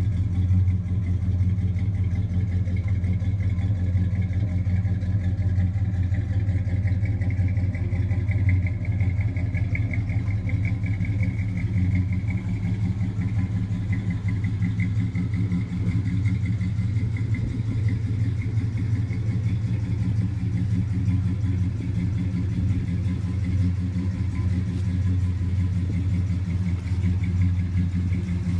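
1966 Dodge Charger's big-block V8 idling with a steady, even rumble; the pitch stays level throughout, with no revving.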